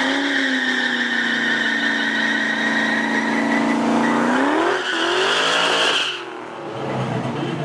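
Drag-racing car's engine held at steady high revs with the tyres spinning in a burnout. About four and a half seconds in the revs climb higher, then cut off suddenly about six seconds in.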